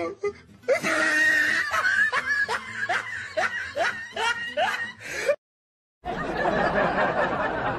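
Laughter: a run of short rising 'ha' pulses, about two a second, that breaks off abruptly a little over five seconds in. After a moment of silence a denser, noisier stretch of laughter follows.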